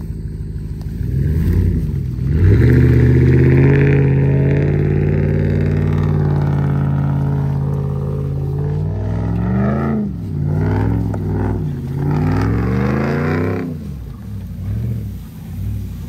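A vehicle engine running at a steady speed, then revving up and dropping back several times in the second half.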